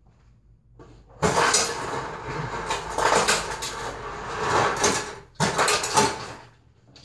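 Refrigerator freezer being opened and rummaged in for ice, with clattering and rattling from about a second in and a second burst of clatter near the end.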